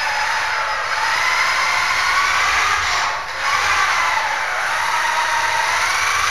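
Whine of a 1:5 scale FG RC car's electric drive, a Plettenberg Dinator motor, rising and falling in pitch with the throttle as the car is driven and drifted. It dips briefly about three seconds in as the throttle comes off, then picks up again.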